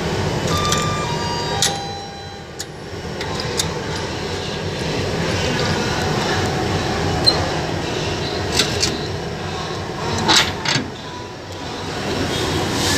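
Steady rail-yard rumble with scattered metal clicks and clanks: a sharp clack about one and a half seconds in and a short cluster of clanks about ten seconds in.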